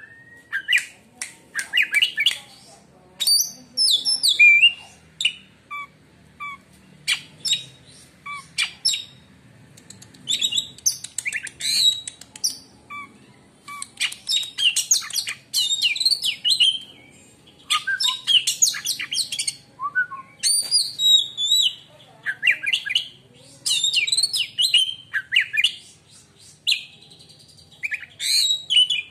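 Oriental magpie-robin (kacer) singing: bursts of fast, varied chirps, whistles and trills in short phrases with brief pauses between them.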